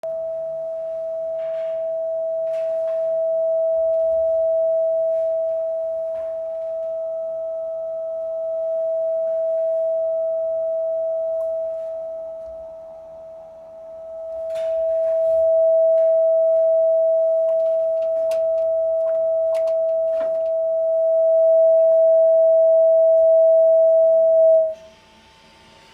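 The reported abnormal noise in a building's common area: a steady, high-pitched electrical whine from equipment there, one pure tone that grows louder and softer in turns and cuts off suddenly near the end. A few faint knocks sound in the background.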